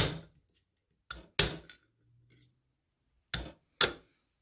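Sharp metallic taps of a hammer on a Webster low-tension magneto's metal housing and cover. There are five strikes: one at the start, then two close pairs about a second and three seconds in.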